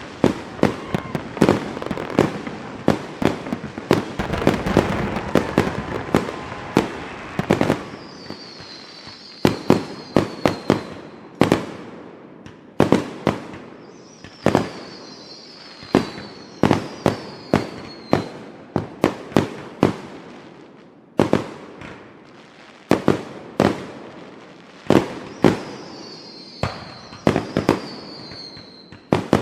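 Fireworks exploding: a dense run of bangs and crackle for the first several seconds, then separate bangs spaced out. Three times, a high whistle falls in pitch among them.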